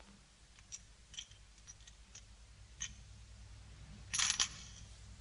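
Metal coins clinking: a few light clicks, then a brief louder clink about four seconds in as the coins are handed over to pay a fine.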